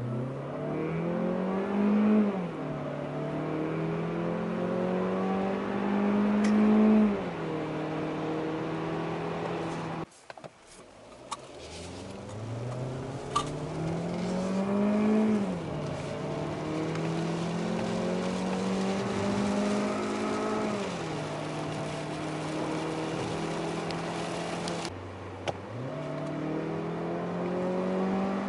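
Mazda CX-30 Skyactiv-X 2.0-litre four-cylinder petrol engine heard from inside the cabin under hard acceleration: its note climbs steadily, drops at each automatic upshift, then climbs again. The sound breaks off about ten seconds in and again near the end, each time followed by a fresh run from low revs.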